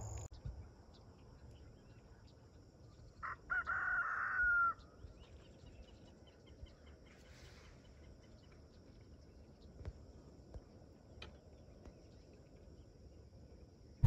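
A rooster crowing once, about three seconds in: a cock-a-doodle-doo of about a second and a half that ends on a falling note. Around it, only quiet outdoor background with a few faint ticks.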